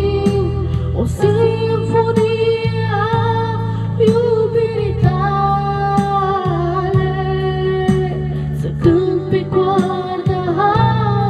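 A woman singing into a handheld karaoke microphone over backing music, holding long notes with vibrato.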